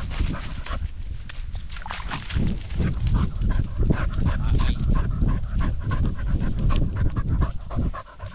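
Cocker spaniel panting fast and hard right at a back-mounted GoPro while running, over a heavy low rumble. The panting and rumble ease about eight seconds in.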